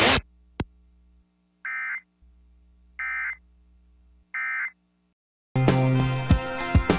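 Emergency Alert System end-of-message data tones: three short, identical digital bursts about a second and a half apart, signalling the end of the broadcast tornado warning. A single click comes just before them, and loud music with sharp beats starts near the end.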